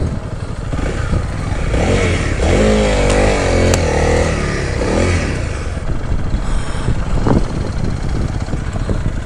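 Honda CRF300L's single-cylinder engine running along a dirt trail, its revs rising and falling about two to five seconds in, under a steady rushing noise.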